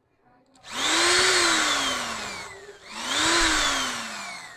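Handheld electric drill cutting a hole in a speaker's top panel, run in two long bursts. Each time the motor whine rises quickly as it spins up, then sinks slowly as the bit bites into the panel.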